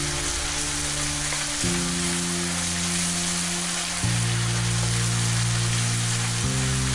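Minced beef with chopped onion and bacon sizzling steadily in a frying pan while a wooden spoon stirs and scrapes through it. Under it run low held musical chords that change about every two seconds.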